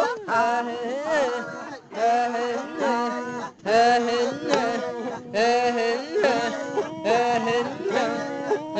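Maasai men chanting a song in short repeated phrases, each about a second to a second and a half long, with brief breaks between them.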